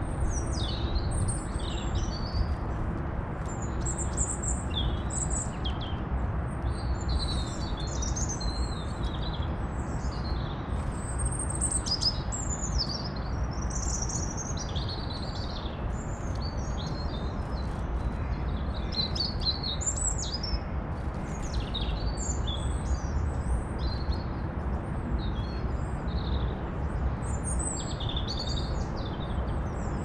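Small songbirds chirping and singing, many short high-pitched calls and trills overlapping, over a steady low background rumble.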